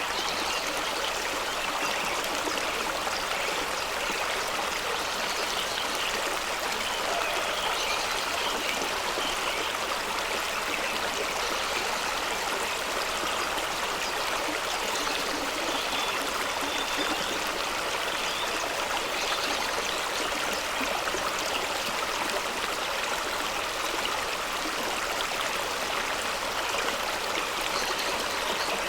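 Fast-running stream rushing and splashing over rocks in a small waterfall: a steady, even rush of water with some gurgling.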